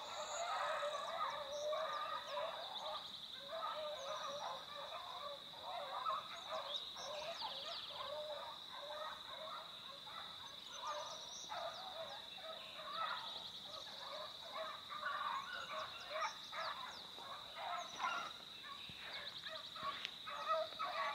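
Pack of beagles baying in chase while running a rabbit, heard from a distance as many overlapping voices with no break. A steady high insect drone runs underneath.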